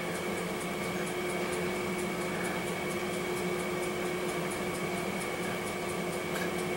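Steady mechanical background hum, with one low and one higher tone held constant and a faint rapid ticking high up; nothing starts or stops.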